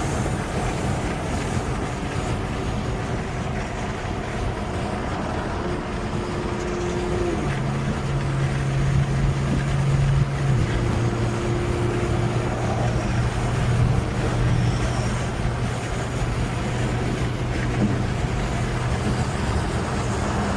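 Inside a BMW 540i cruising after a hard run: its turbocharged inline-six hums steadily under road and tyre noise. The engine note drops a step about halfway through.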